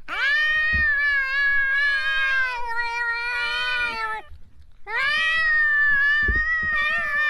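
Tabby cat yowling in two long drawn-out calls, the second starting about five seconds in after a brief pause: the threat yowl of a cat squaring up to another cat.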